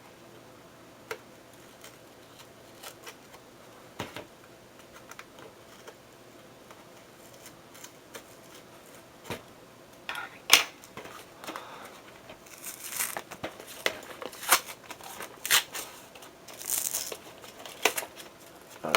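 Cardboard shipping box being cut and torn open: scattered light clicks and taps at first, then from about halfway a run of sharp scraping, ripping and crinkling as the packaging is forced open.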